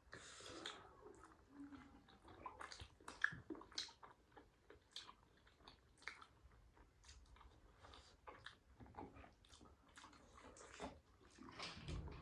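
Soft, close-miked chewing of momo dumplings: many short, irregular mouth clicks and wet smacks.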